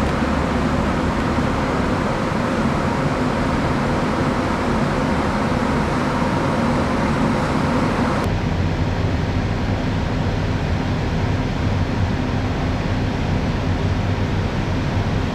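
Steady drone of a moored passenger ship's onboard machinery and ventilation, a low hum under even noise. The sound changes suddenly about eight seconds in, turning duller with a stronger low hum.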